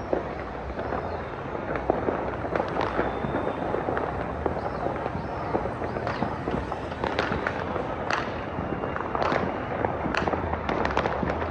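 Many fireworks and firecrackers going off at once: a dense, continuous crackling with sharp pops and bangs scattered throughout.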